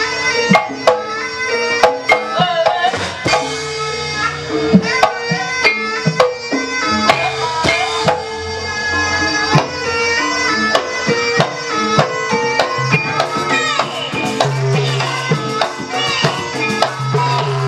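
Javanese gamelan music for an ebeg dance: hand-drum (kendang) strokes in a busy rhythm over struck metal tones.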